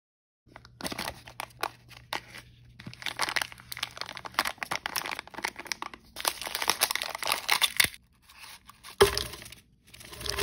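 Thin printed plastic wrapper of a toy blind bag crinkling and tearing under the fingers as it is opened, in dense crackling bursts. A single sharp snap, the loudest moment, comes about nine seconds in.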